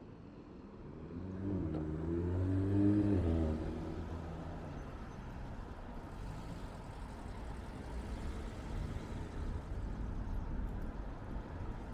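A car passing close by, its engine note rising as it accelerates and loudest about three seconds in, then fading into a steady low rumble of street traffic.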